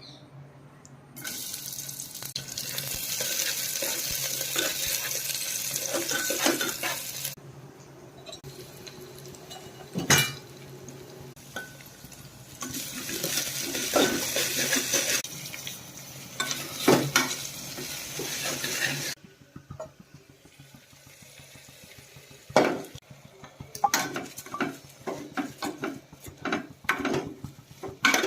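Kitchen tap running in two stretches of several seconds, each starting and stopping abruptly, with clinks and knocks of metal utensils against pots. After that comes scattered clattering of pots and spoons.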